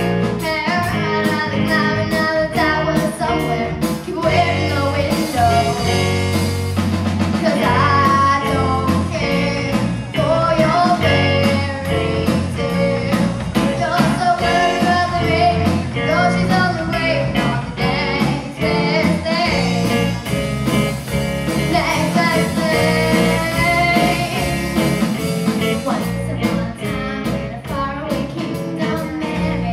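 Live rock band: a girl singing lead into a microphone over electric bass guitar and a steady beat.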